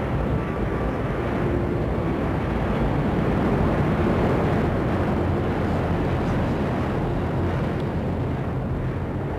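Airbus A380's four Rolls-Royce Trent 900 turbofan engines passing low overhead: a deep, steady jet rumble and rush. It swells slightly toward the middle and eases off near the end as the aircraft moves away.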